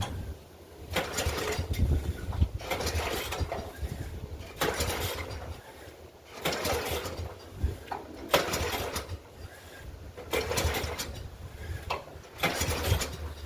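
Craftsman walk-behind mower being pull-started by its recoil starter cord, about six pulls each roughly a second long, one every two seconds or so, without the engine settling into a steady run.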